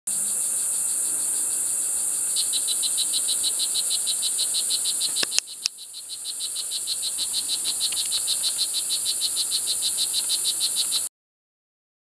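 Strawberry poison dart frog (blue jeans morph) calling: a long, even series of high chirps, about six a second, starting about two seconds in, over a steady high hiss. Two sharp clicks interrupt it briefly midway, then the chirping goes on until all sound cuts off shortly before the end.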